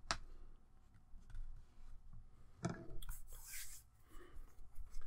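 Faint handling noises: a few light taps and a brief rustle of paper as a paper-wrapped wooden block is folded by hand and set down on a cutting mat. The loudest tap comes about two and a half seconds in, followed by a short rustle.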